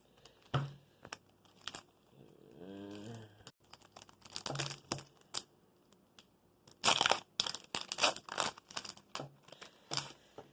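Foil wrapper of a Pokémon card booster pack being torn open and crinkled: a run of short, sharp crackles and rustles, thickest about seven to eight seconds in.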